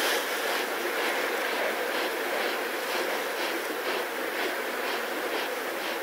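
African lions breathing close to the microphone, a steady rhythm of about two breaths a second over a constant hiss.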